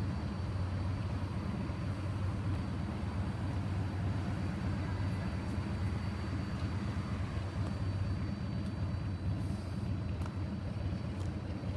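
Steady low rumble of road vehicles running, with a faint steady high-pitched whine over it.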